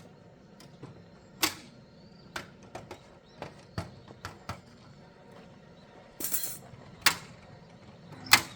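Irregular sharp knocks and clicks of objects being handled, about seven in all and the loudest about one and a half seconds in and near the end, with a short rustle about six seconds in.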